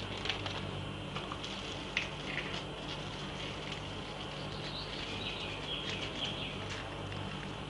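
Crisp fried bread crust crackling with a few sharp clicks as it is torn apart by hand, over a low steady hum. Faint high chirping runs in the background.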